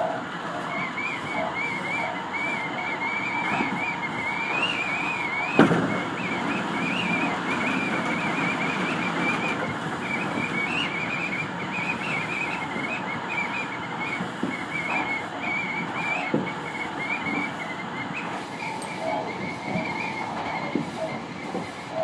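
Tobu 50000-series electric train running at speed, heard from inside the front car: steady rumbling running noise with a wavering high whistling tone, and one sharp knock about five and a half seconds in.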